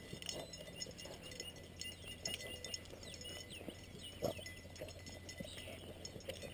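Faint rustling and light ticks of movement over dry grass, over a low steady hum, with a few faint high chirps about three seconds in.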